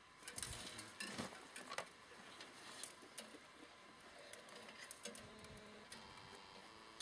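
Faint scattered clicks and light knocks of hand tools and small hard parts being handled, a cluster of them in the first two seconds, then sparser ticks.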